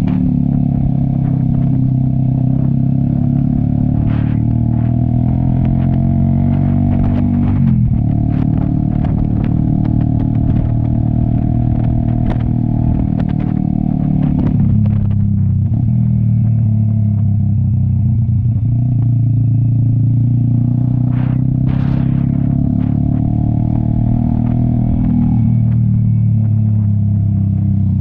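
Cafe 400 motorcycle running through an aftermarket SC Project exhaust at riding speed. The engine note drops in steps a few times, as with shifts or easing off the throttle, with a few light clatters from the road.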